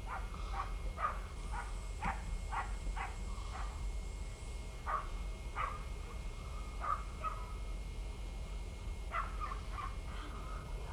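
Short animal calls repeated irregularly, about a dozen in all, in small clusters over a steady low rumble.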